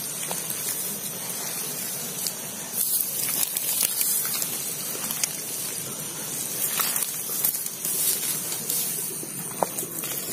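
Bare hands digging and squeezing wet rice-paddy mud: a continuous wet hiss with many scattered small clicks and pops.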